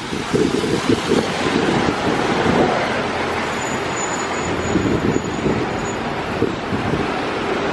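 City street traffic noise, a steady passing rumble of vehicles, with wind buffeting the microphone.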